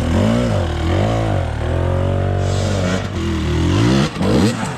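Two-stroke dirt bike engine revving up and down in repeated blips of throttle, with a steadier stretch held in the middle, as the bike is worked up a rock step.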